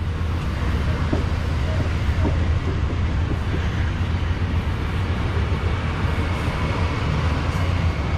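Amtrak diesel locomotive running with a steady, deep rumble.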